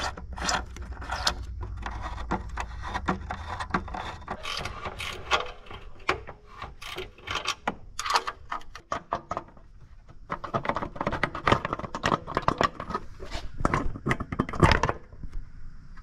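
Hand ratchet clicking in quick runs while loosening the small bolts and nuts of an exhaust heat shield, with scattered metal clinks and scrapes of the socket and shield.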